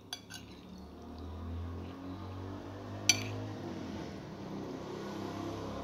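Metal spoon clinking against a ceramic bowl while stirring mayonnaise-dressed macaroni salad: a few small clicks at the start and one sharp, ringing clink about three seconds in.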